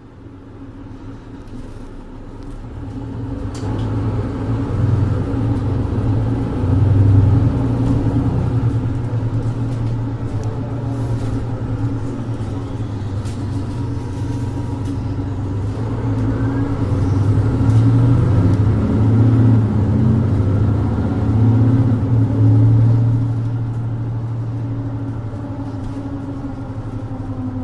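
Mercedes-Benz Citaro 2G bus's OM470LA straight-six diesel, heard from on board, driving with the ZF EcoLife six-speed automatic. The engine note climbs over the first few seconds, swells and dips several times as the bus pulls and changes speed, and eases off near the end.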